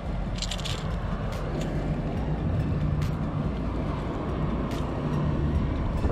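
Wind rumbling steadily on the camera microphone. A few faint clicks come from the lure and hooks being handled as they are worked free of the fish's mouth.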